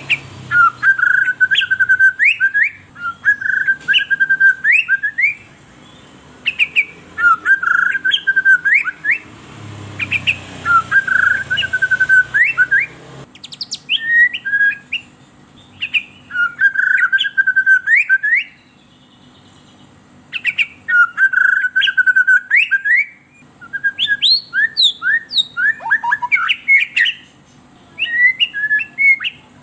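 White-rumped shama (murai batu) singing a fast, agitated lure song: short repeated phrases, each a held whistled note broken by quick upward flicks, in bouts of a second or two with brief pauses.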